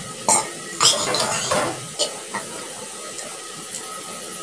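Mouth sounds from eating: a few sharp smacks and clicks and a second or so of noisy breathing near the start, over a steady background hiss.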